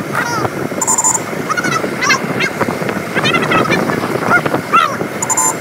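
A vehicle horn sounds two short beeps, one about a second in and one near the end, over the steady noise of the moving vehicle.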